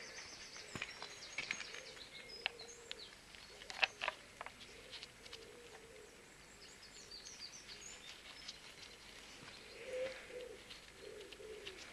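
Birds chirping and cooing in the background, with a few light clicks and taps as a steel bolt is handled and threaded by hand into a forklift battery cell's terminal; the sharpest click comes about four seconds in.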